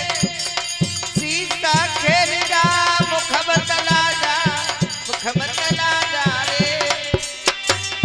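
Live Hindi devotional bhajan: a sung melody that bends and wavers, over a steady hand-drum beat of about two strokes a second.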